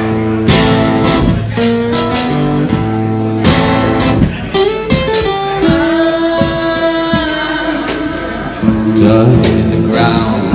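Acoustic guitar played live, notes picked and strummed, with a singer's voice.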